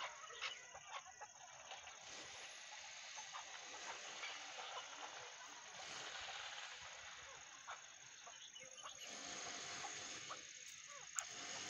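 A chukar partridge giving a few soft, faint clucking calls, just after the start and again about two-thirds of the way through, over a steady outdoor hiss. A single sharp click comes near the end.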